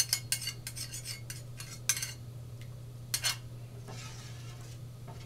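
A porcelain soup spoon and a metal spoon clink and scrape against a stainless steel mixing bowl as oyster sauce is scraped into white batter and stirred. A quick run of clinks comes over the first two seconds, two more a little after three seconds, then a soft scraping swish. A steady low hum runs underneath.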